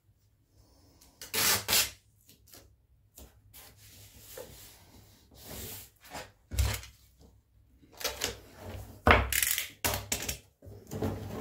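Duct tape pulled off the roll in several short rips and pressed down onto cardboard, with a couple of knocks against the workbench.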